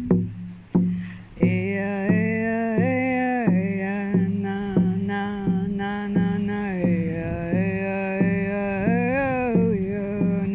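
A woman sings long, wordless held tones over a hand drum beaten in a steady slow pulse, about three beats every two seconds. The voice drops out briefly at the start while the drum keeps going, then returns about a second and a half in, sliding between held notes, with a wavering pitch near the end.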